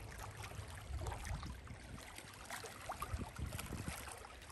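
Small waves lapping at the edge of a lake, with irregular little splashes, under a low rumble of wind on the microphone.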